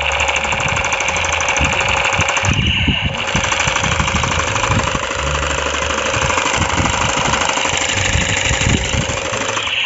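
Battery-powered toy assault rifle playing its electronic machine-gun firing sound: a loud, rapid rattle through its small speaker, with a brief break about three seconds in.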